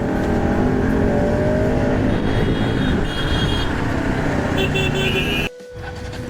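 Motorcycle ride through traffic: engine and wind rush, with vehicle horns honking twice in the second half. The noise drops off suddenly about five and a half seconds in.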